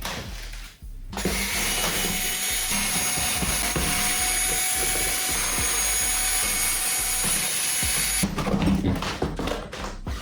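Electric drill running steadily for about seven seconds, starting about a second in and stopping near the end, as it drives out screws while the toy car is taken apart.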